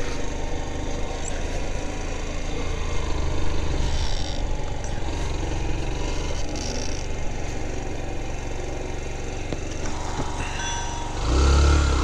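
Motorcycle engine running steadily at low speed, with a louder low swell near the end.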